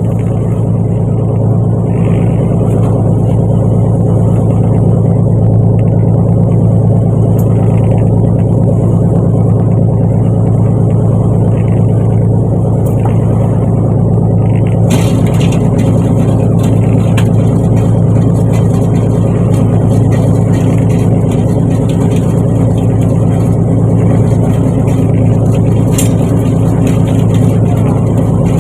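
Fishing boat's engine running steadily under way, a loud, even low drone, with a sharp click about halfway through and another near the end.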